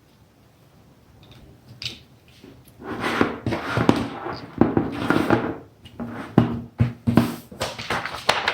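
Hands at work wiring a relay terminal: rustling and scraping of wire and tools, with several sharp clicks and knocks. It starts about three seconds in after a quiet opening.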